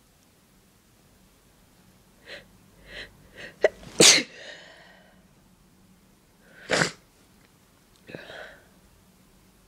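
A person's sneeze buildup: four short catching breaths, then a loud sneeze about four seconds in, and a second, shorter sneeze near seven seconds, followed by a breath.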